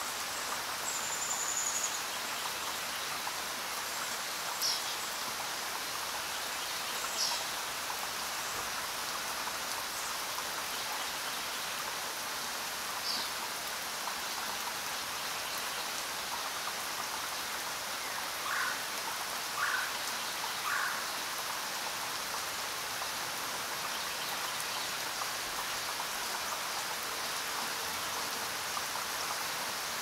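Steady rain falling, an even hiss throughout. A few short chirps rise above it now and then, three of them close together about two-thirds of the way through.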